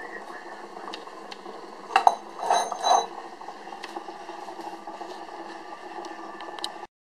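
Glass and ceramic kitchenware clinking as a bowl, funnel and glass jar are handled: one sharp clink about two seconds in, then a short cluster of clinks and rattles, over a steady hiss. The sound cuts off just before the end.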